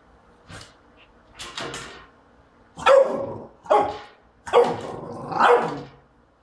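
French bulldog barking in short separate barks: a few softer ones first, then four loud barks about a second apart in the second half.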